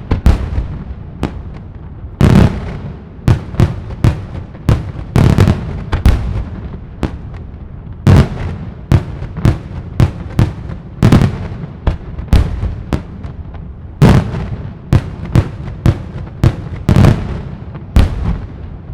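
Daylight fireworks: aerial salute shells bursting one after another in loud bangs, about one to two a second at an uneven pace, each followed by a short echoing rumble.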